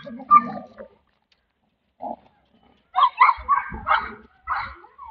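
Dog grunting and growling in short rough bursts as it tugs on a tug toy, a quick run of them starting about three seconds in.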